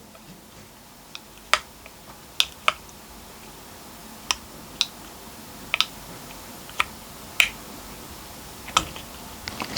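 Plastic key fob case clicking and tapping as it is pressed and prised at to refit its rubber button pad: about a dozen small sharp clicks at irregular intervals.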